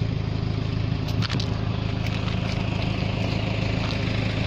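Steady low drone of an idling engine, with a few short clicks about a second in.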